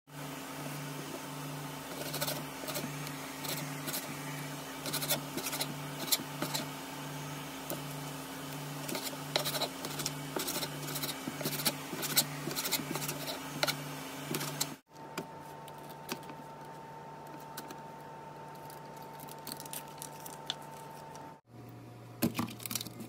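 Chef's knife slicing raw chicken on a thin plastic cutting board: irregular taps and scrapes of the blade against the board, over a steady low hum that pulses a little faster than once a second. About fifteen seconds in the tapping stops and the hum goes on alone, with a few handling clicks near the end.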